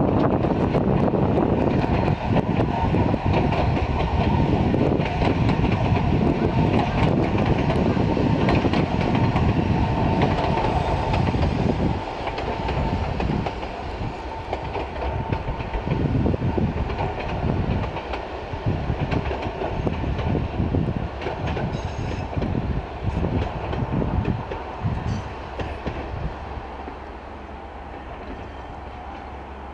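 Sangi Railway electric train passing, its wheels clattering over the rail joints. The noise is loud for the first twelve seconds, then drops to spaced-out clacks that fade as the train draws away.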